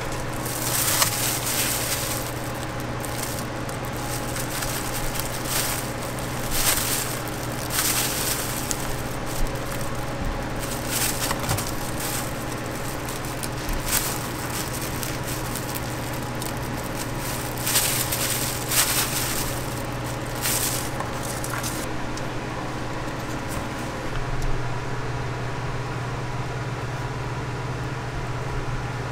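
Steady low machine hum with irregular crinkling and scraping as plastic-gloved hands handle waffles on a wire rack. The crinkling stops about 22 seconds in, leaving the hum.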